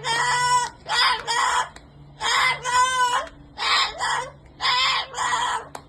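Cockatoo squawking in a rapid run of loud, harsh calls, each about half a second long, roughly two a second and often in pairs.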